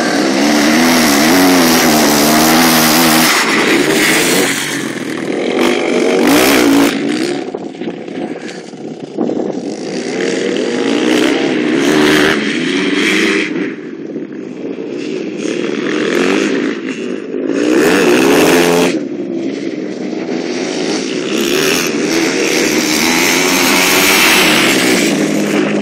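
Motocross dirt bike engine revving, the revs rising and falling again and again as the bike is ridden round the track, growing louder and fainter as it passes.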